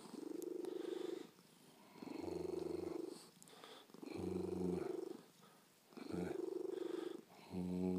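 Domestic cat purring as it is stroked, in long pulses about every two seconds with short dips between breaths.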